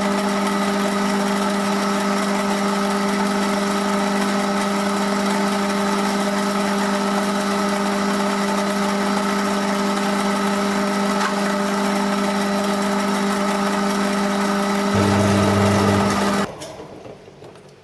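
Machine tool's electric motor running steadily with a strong hum during a boring cut into the compound swivel casting, then switched off about a second before the end and going quiet.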